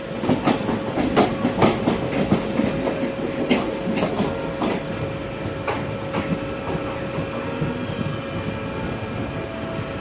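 Passenger train running on rails, its wheels clattering over the track with irregular clicks and knocks under a steady hum. The knocking is densest in the first half.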